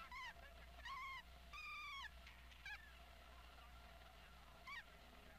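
Chimpanzee giving about five short, high-pitched, wavering cries, the longest about one and a half seconds in.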